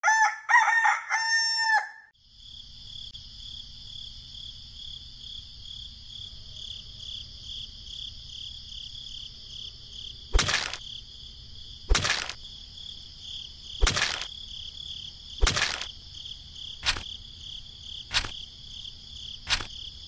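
A rooster crows once, lasting about two seconds. It is followed by a steady high-pitched buzz with sharp clicks repeating about every one and a half seconds in the second half.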